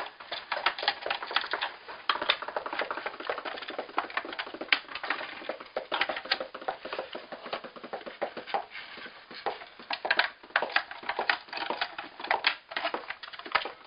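Screwdriver working small screws out of a plastic Pinokio paintball loader shell: a continual, irregular run of small clicks and taps of metal on plastic.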